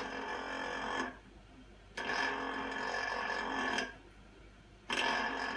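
Common rail injector valve lapping machine's spindle motor spinning at about 2,600 rpm, grinding an injector valve plug against 40-grade lapping paste. It whirs with a steady whine in repeated runs of about two seconds, each followed by a short quieter gap: one run ends about a second in, another follows, and a third starts near the end.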